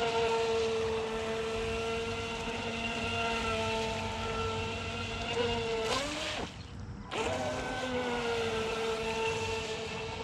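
Proboat StealthWake 23-inch deep-V RC boat's brushed electric motor running on a 2S LiPo, a steady high whine. About six seconds in the pitch drops away and the motor goes quiet for nearly a second, then winds back up to a steady whine.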